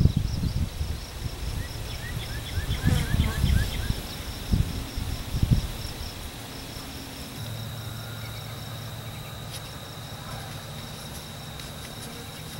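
Rural outdoor ambience: insects chirping and droning, with a bird's quick run of short falling notes a couple of seconds in. Low gusty rumbles come and go through the first half.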